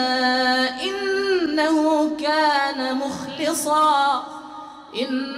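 A man's voice reciting the Quran in melodic tajweed, drawing out long held notes that bend and waver in pitch, with a brief break about four and a half seconds in.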